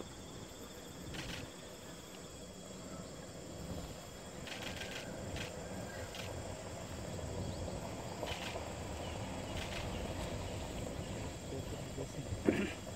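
Quiet outdoor forest ambience: a steady low rumble with a few faint, short chirps scattered through and a brief louder sound near the end.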